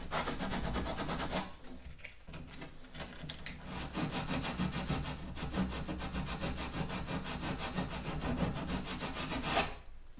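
Hand-sanding by hand in a narrow notch in a plywood dinghy hull, cleaning hardened epoxy out of the slot where a rail goes. Fast back-and-forth scraping strokes, several a second, with a short break about a second and a half in, stopping near the end.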